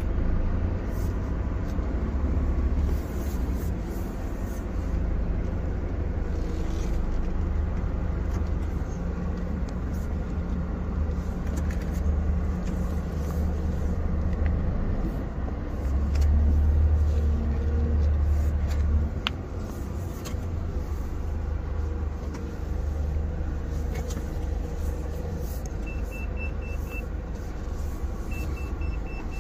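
Scania truck's diesel engine running at low speed, heard from inside the cab as the truck creeps around, with the engine noise rising for a few seconds a little past the middle. Near the end come two short runs of high beeps.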